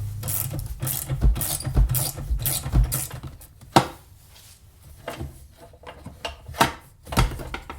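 Socket ratchet clicking rapidly for about three seconds as the battery tie-down nuts are undone, then a few separate sharp clicks and knocks of metal parts being handled.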